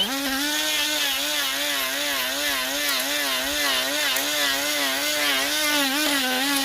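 Hyper Tough 12-volt die grinder running at speed: a steady motor whine whose pitch wavers up and down repeatedly, with a brief dip right at the start.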